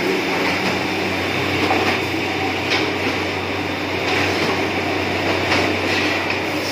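Wood finger-jointing line running: its motors and rubber feed rollers run with a steady mechanical din and a constant low hum, with a few light clicks or knocks from the machinery.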